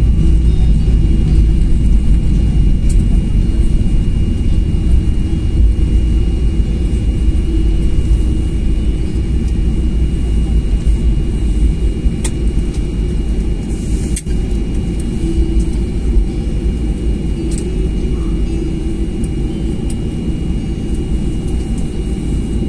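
Cabin noise of a Boeing 737-800 with CFM56 engines rolling out on a wet runway just after landing: a loud, steady rumble of engines and wheels that slowly eases as the aircraft slows.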